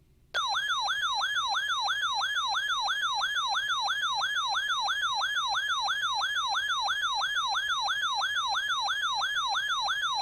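Weather radio's alert siren sounding for a severe thunderstorm warning: a loud electronic tone warbling rapidly up and down, about three sweeps a second. It starts abruptly about half a second in.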